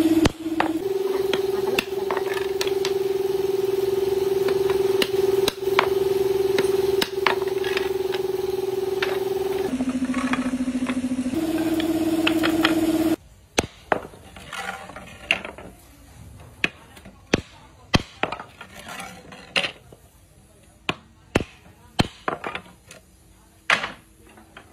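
For the first half, a loud steady held tone that drops in pitch and then rises again, over a few sharp taps. After that it cuts off, and a hammer knocks corrugated steel fasteners into the corners of a wooden carrom board frame in sharp, irregular strikes.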